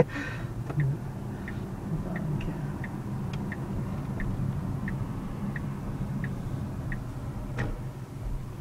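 Turn-signal indicator ticking steadily, about three ticks every two seconds, over the low hum of a Tesla Model S cabin rolling slowly. A single louder click comes near the end.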